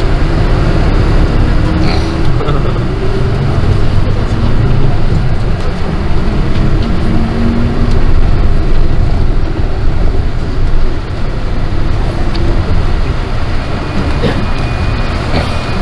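Inside a moving bus: steady engine and road noise, a loud low rumble without breaks.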